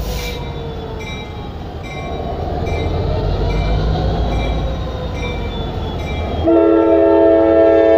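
Norfolk Southern diesel-electric locomotive running past at close range, hauling covered hoppers, with a short high ding repeating about every three-quarters of a second. About six and a half seconds in, its air horn sounds as a loud, steady chord that holds.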